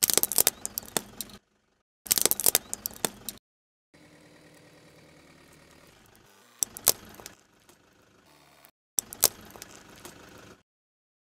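A car tyre rolling over small plastic objects on gritty asphalt, crushing them with sharp cracks and crunches in four short bursts cut apart by sudden silences. Between the second and third bursts there is a steady low engine-and-tyre rumble.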